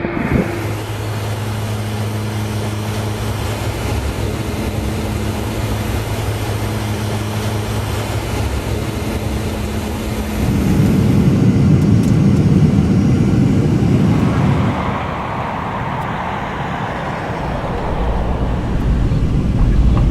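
Aircraft engines running, at first a steady low hum, then turning louder and rougher about halfway through, with further abrupt changes near the end.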